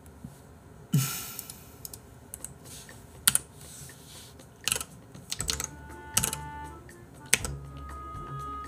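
Computer keyboard keys tapped in scattered, irregular clicks. Soft background music with held notes comes in about halfway through.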